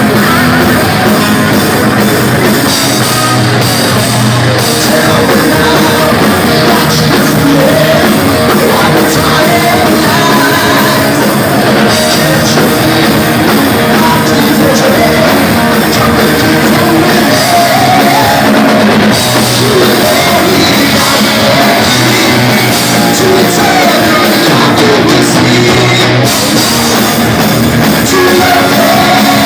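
Heavy metal band playing live: loud distorted guitars and drums, with a male voice singing over them.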